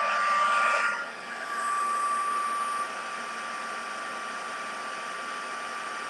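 Embossing heat tool blowing hot air with a steady fan whine, melting white detailed embossing powder on a stamped sentiment. It is louder for the first three seconds, dipping briefly about a second in, then runs evenly.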